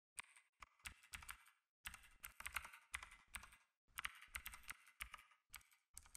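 Typing: quick key clicks in short, irregular runs with brief pauses between them.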